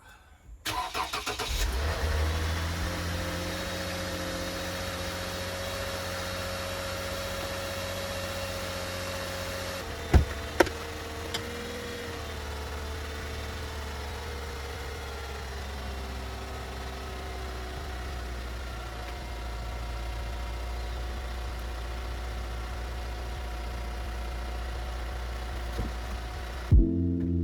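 Lexus car engine cold-starting in winter: it cranks and catches, then settles into a steady idle. A whine holds steady, then drops in pitch about halfway through as the fast cold idle comes down. Two sharp knocks come about ten seconds in.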